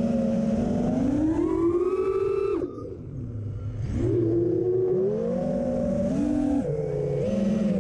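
FPV quadcopter's brushless motors and propellers whining, the pitch climbing and falling with the throttle. The pitch and level drop sharply about two and a half seconds in, then climb again about a second later.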